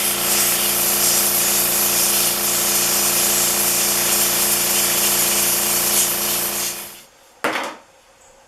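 Compressed-air blow gun blasting dirt and grime out of a car's hood latch: a loud, steady hiss with a hum underneath for about seven seconds, cut off, then one short blast.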